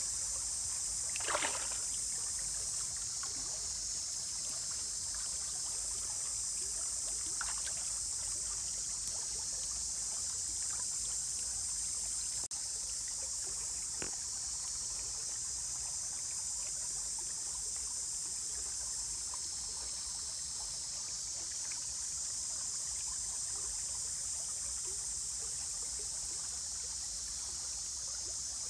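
A steady high-pitched hiss of creekside ambience, with a few faint splashes and knocks as hands work a hook line in shallow water.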